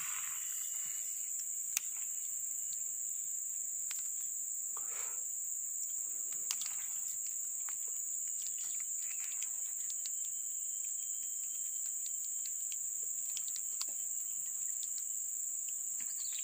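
Insect chorus of tropical swamp crickets or cicadas: a steady high-pitched drone, with scattered faint clicks.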